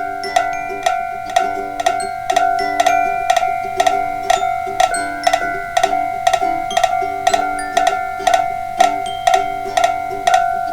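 Animated Japanese railroad crossing warning bells ringing together: an even clanging a little over twice a second over a steady ringing tone, with a lower alternating two-note pattern beneath.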